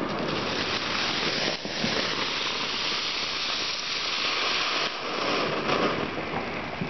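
Ground fountain firework spraying sparks with a steady hiss that dips briefly twice.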